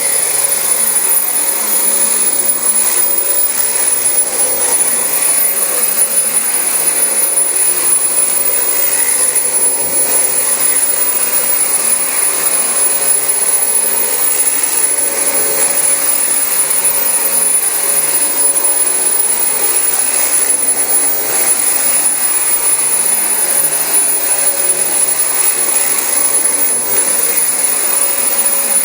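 Dyson DC25 bagless upright vacuum cleaner running steadily while vacuuming carpet: an even rush of air with a thin, steady high-pitched whine on top.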